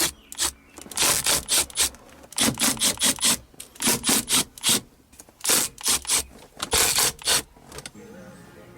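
Quick scraping strokes, two to three a second, in five short bursts with brief pauses between them.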